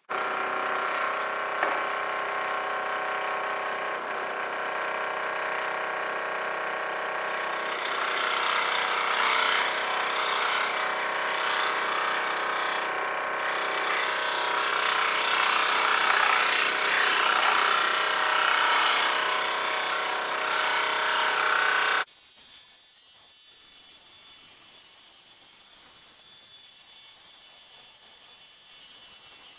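Electric scroll saw switched on and running, its reciprocating blade cutting through a glued-up wooden board to round off the corners; the cutting gets louder about a third of the way in. About 22 seconds in, the sound drops suddenly to a quieter, hissier sawing sound.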